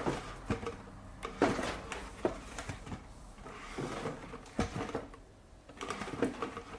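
A chair being moved about, its legs scraping and knocking on the floor in a run of irregular bumps.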